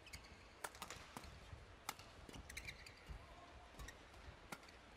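Badminton rackets striking a shuttlecock in a fast doubles rally: faint, sharp hits at an irregular pace, about two a second.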